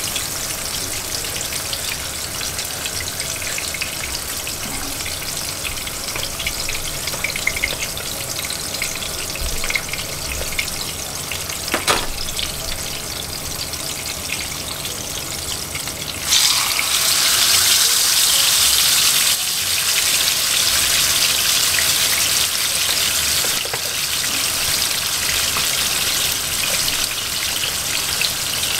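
Whole snapper sizzling as it shallow-fries in hot oil in a frying pan. About two-thirds of the way through, a second fish goes into the oil and the sizzling suddenly turns much louder and brighter, staying up from then on; a single sharp knock comes a little before that.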